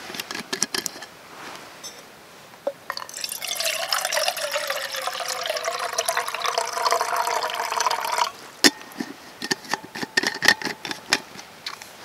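Water poured from a metal bottle into a metal cook pot, a steady splashing fill lasting about five seconds that stops abruptly. Clicks and clinks of the gear being handled come before and after it, with a sharp knock just after the pour ends.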